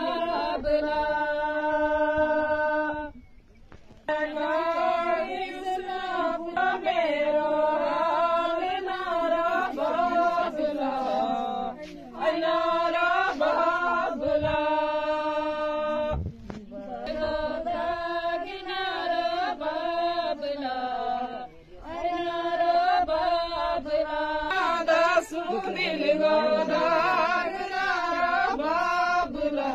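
Women singing a Gojri folk wedding song without instruments, in long drawn-out phrases that glide in pitch, with short breaks between phrases.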